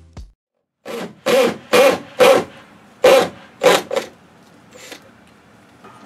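Background music cutting off, then six short rasping strokes at irregular intervals of about half a second to a second, with a fainter seventh about five seconds in.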